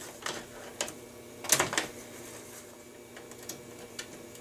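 Electrical wires being handled inside a metal breaker panel: scattered light clicks and scrapes, the sharpest about a second and a half in.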